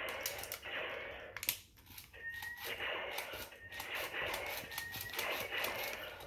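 Repeated plastic clicks and rattling from a large Iron Man action figure being handled, its limbs moved and posed.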